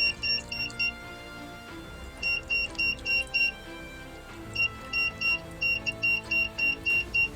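Homemade rain alarm's buzzer beeping in quick runs of about four short, high beeps a second, with pauses of a second or so between runs: water across its copper rain sensor has set the alarm off. Background music plays underneath.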